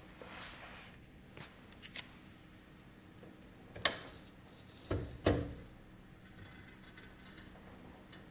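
A few scattered mechanical clicks and clunks as a hobby servo taped to a door is turned by hand against the door lock's mechanism. There is a sharp click about four seconds in and two duller knocks about a second later; the lock does not open.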